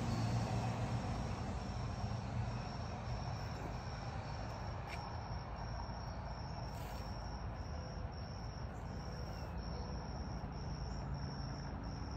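A cricket chirping steadily in short, high-pitched pulses, about two a second, over a steady low hum and hiss of outdoor background noise.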